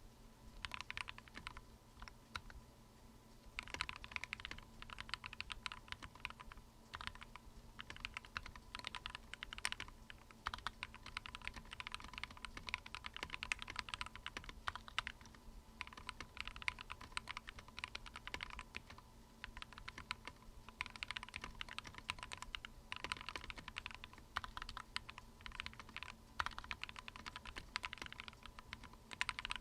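Typing on a mechanical keyboard fitted with Akko Matcha switches: rapid runs of keystroke clicks, broken by short pauses every few seconds. A faint steady high tone sits underneath.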